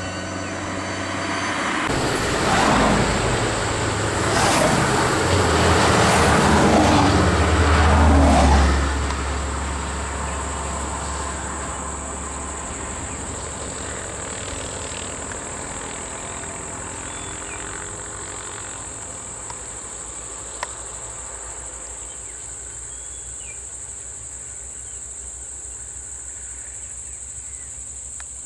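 Motor vehicles running close by for the first several seconds, with a low engine rumble that swells and then fades. After that, a steady high-pitched insect drone continues, with a few faint bird chirps.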